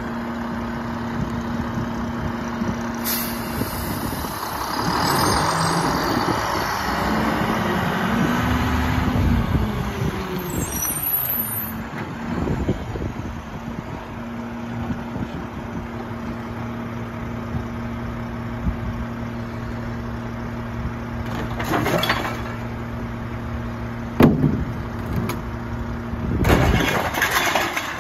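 Mack LEU garbage truck's diesel engine idling, then revving as the truck pulls forward a short way, with a hiss of air brakes as it stops about ten seconds in, then idling again. Near the end come a couple of clanks and a loud clatter as a recycling bin is tipped into the McNeilus rear-loader hopper.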